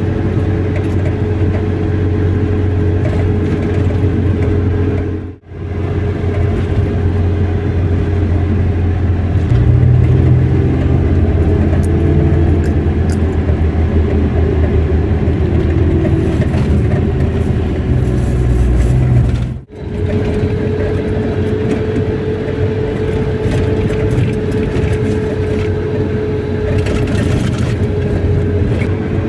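Car driving along a road: a steady low engine and road rumble. The sound drops out briefly twice, about five seconds in and again near twenty seconds.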